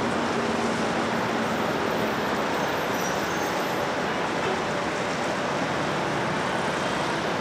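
Distant jet engine noise from a Delta Airbus A321neo on its takeoff roll: a steady, even rush with no distinct tones.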